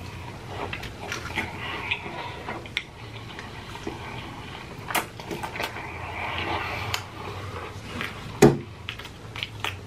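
A person chewing a large mouthful of fries close to the microphone: wet mouth smacks and small clicks, with a louder smack about eight and a half seconds in.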